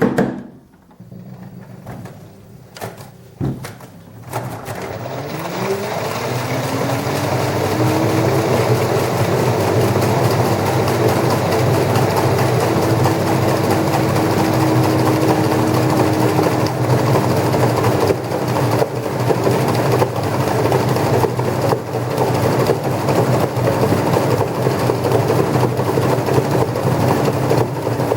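LG washing machine drum spinning up for a hard spin. After a few clicks and knocks, a motor whine climbs in pitch for several seconds, then levels off into a loud, steady high-speed spin.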